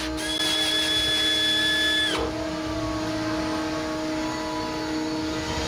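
Cordless drill running in one steady whine for about two seconds, then stopping, over a constant background hum.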